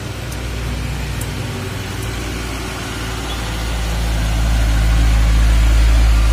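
Hino Dutro light truck's diesel engine running steadily as the truck passes close by, growing louder over the last few seconds.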